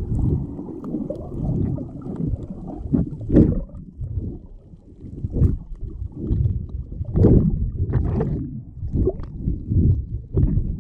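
Muffled underwater sound picked up by a camera below the surface: a low, surging rumble of moving water, with sharp clicks and pops now and then.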